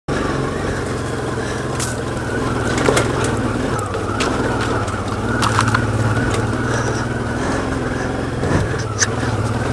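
Honda Transalp 650 V-twin motorcycle engine running steadily at low speed on a rough trail, with scattered sharp clicks and knocks from loose stones under the tyres.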